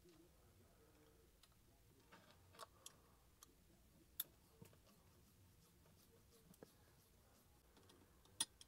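Near silence broken by a handful of faint, scattered clicks from a hex driver and small parts as screws are backed out of a 1/18-scale RC monster truck's chassis.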